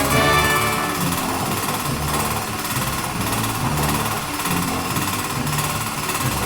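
Two-bagger concrete mixer running: a steady, fast mechanical rattle.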